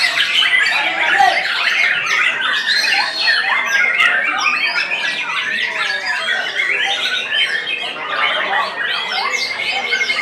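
White-rumped shamas (murai batu) in contest cages singing at once: a dense, loud mix of overlapping whistles, chirps and chatter, with a fast trill near the end.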